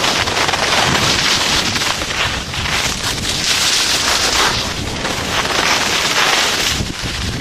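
Wind rushing over the microphone of a camera carried down a ski slope, mixed with the hiss and scrape of edges sliding across packed snow, swelling and easing with the turns and dropping off briefly twice.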